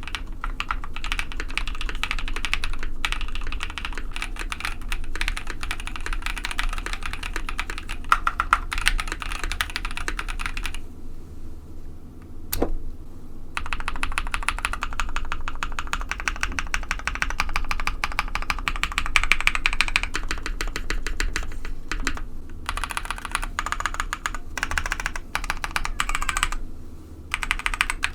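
Fast continuous typing on a KBD67 Lite mechanical keyboard with Novelkeys Cream linear switches, polycarbonate plate and PBT keycaps. Typing stops for about two seconds near the middle, broken by a single keystroke, then resumes, with brief pauses near the end.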